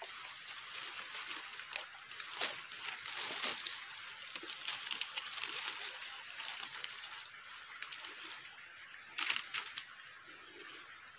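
Leaves and branches rustling and crackling as foliage is pushed aside and handled to pick wild flowers, with a few sharper crackles among the steady rustle.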